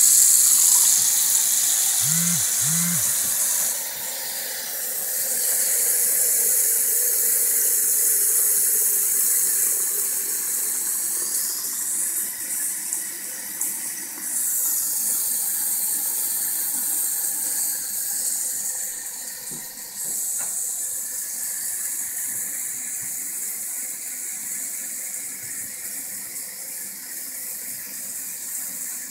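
Bathroom sink faucet running at full flow, water hissing and splashing into the basin, gradually getting quieter as the basin fills with standing water.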